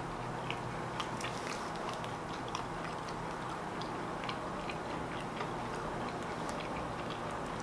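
A person chewing a mouthful of fried chicken sandwich close to the microphone: irregular small clicks of the mouth over a steady background hiss.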